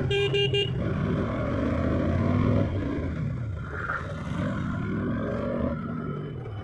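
A vehicle horn blares briefly at the start, then a KTM motorcycle's single-cylinder engine runs beneath the rider, its pitch rising and falling with the throttle in slow stop-and-go traffic.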